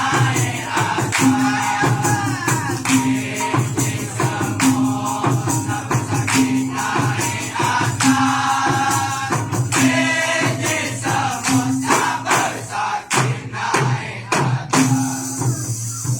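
Dikir barat performance: a percussion ensemble of frame drums and maracas playing a fast, steady beat, with the chorus singing over it between the lead singer's verses.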